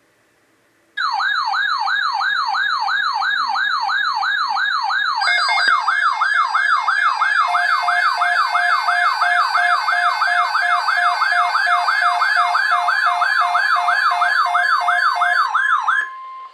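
Electronic siren warbling up and down about two and a half times a second. A second, pulsing alarm tone joins it about five seconds in, and the sound ends on a brief steady tone.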